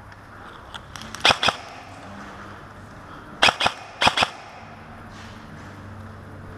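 Airsoft guns firing: sharp cracks in quick pairs, first about a second in, then two more pairs around three and a half and four seconds in.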